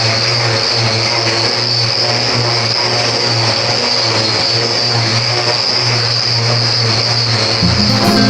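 A motor running steadily, with a low hum under a high whine that holds one pitch throughout.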